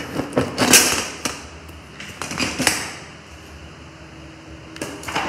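Motorcycle seat being unclipped and lifted off the frame: a quick run of clicks, knocks and creaks in the first three seconds, then a few more clicks near the end.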